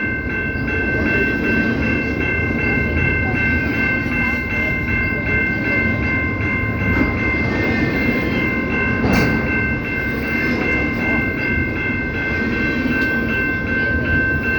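CPKC train rolling past with a steady rumble, and a sustained high chord of several tones held unbroken above it.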